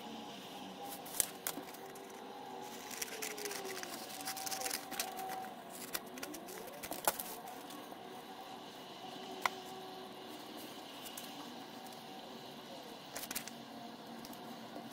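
Paper handling and a glue stick in use on craft paper: rustling, rubbing and a few sharp clicks and taps, the loudest about a second in, about seven seconds in and about nine and a half seconds in.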